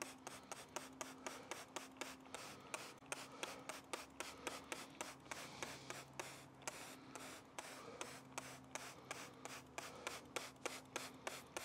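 Handheld trigger sprayer being pumped rapidly, about four short squirts a second, misting water over freshly sown seed trays.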